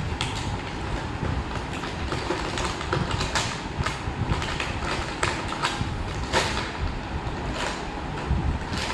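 Battery-operated penguin slide race track toy running: a steady plastic rattle with irregular sharp clicks.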